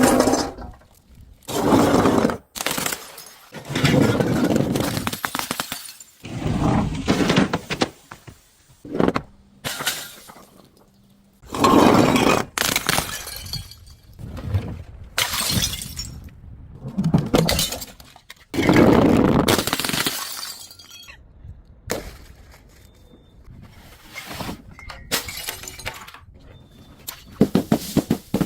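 Glass bottles being smashed and crushed: repeated crashes of breaking glass, each followed by crunching and tinkling of shards.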